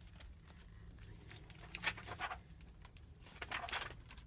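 Rustling and light knocks of books being handled, with a few short rustles about halfway and near the end.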